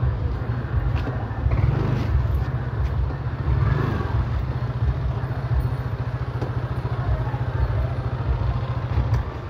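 A steady low rumble of a vehicle on the move.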